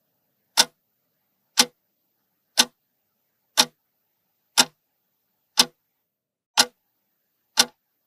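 Clock-tick sound effect keeping time for a countdown timer: eight sharp, evenly spaced ticks, one each second.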